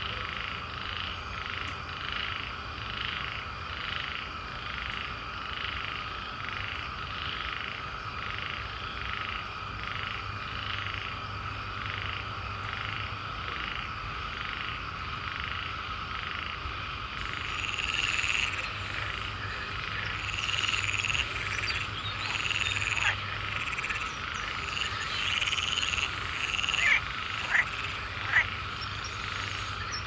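A chorus of frogs croaking at night: a steady background chorus with one call pulsing about twice a second. About halfway in, louder, higher calls join, and a few sharp, loud calls stand out near the end.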